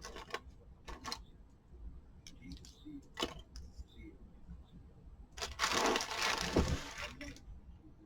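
Cardboard jigsaw puzzle pieces being handled and taken out: a few light clicks and knocks, then about two seconds of rustling about two-thirds of the way through.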